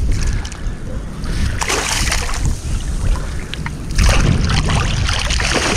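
Water splashing as a cast net with mullet in it is hauled in through the shallows, in two louder stretches, over a low rumble of wind on the microphone.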